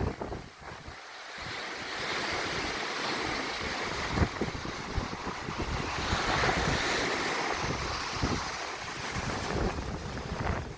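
Waves breaking and washing on a beach in strong wind, with gusts buffeting the microphone. The surf's wash swells about two seconds in and is loudest around the middle.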